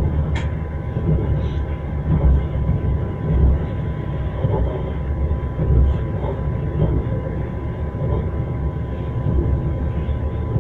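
Train wheels knocking over the rail joints over a steady low rumble of a moving train, with a few heavier knocks and one sharp click about half a second in.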